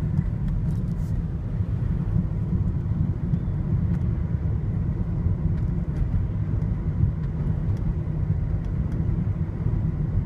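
Steady low rumble of tyre and engine noise inside a moving car's cabin.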